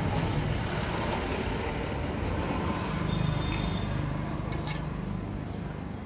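Low, steady rumble of passing motor traffic that swells a little midway, with a few light metallic clinks about four and a half seconds in as LPG reducer parts are handled over a steel bowl.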